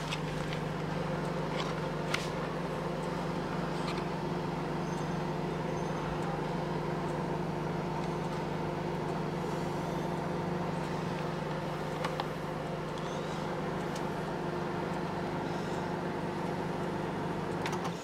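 Microwave oven running with a steady, even hum made of several constant tones, and a few faint clicks, while it heats a bar of soap.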